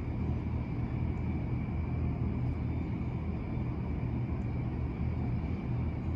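A steady low rumble, like distant traffic, with a faint thin high tone held throughout.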